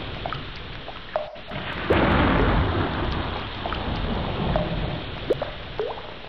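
Heavy rain falling with thunder rumbling; the noise dips briefly about a second in, then swells louder about two seconds in, with scattered short drop plinks over it.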